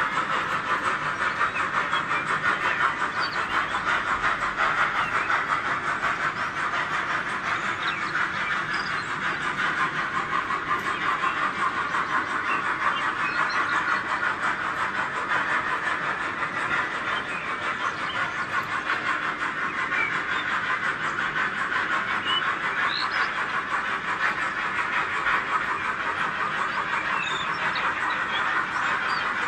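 H0-scale model freight wagons rolling past on the track: a steady, rapid rattle and clicking of small metal wheels on the rails, with a faint high squeak now and then.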